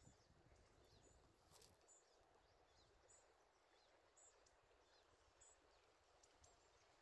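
Near silence: faint room tone with a soft, high chirp repeating about once a second and a few faint clicks.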